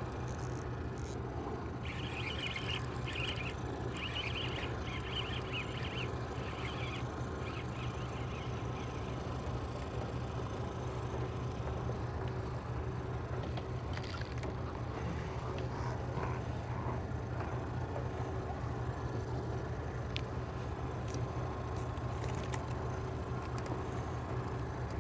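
Steady low engine hum throughout, with a choppy, scratchy rasping for a few seconds near the start and a few light clicks.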